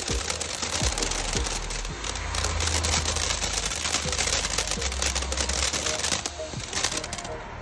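Consumer firework fountain burning, a steady spraying hiss full of dense, rapid crackles, over a low rumble; the hiss drops away near the end.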